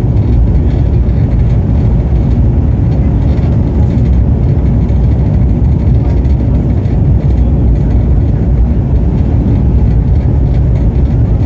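Train running at speed: a steady, loud rumble without distinct wheel clacks.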